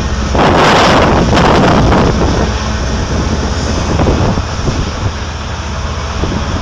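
Komatsu PC8000 hydraulic mining shovel's twin engines running with a steady low drone as the bucket is raised. A loud rushing noise starts about half a second in and dies away after about two seconds.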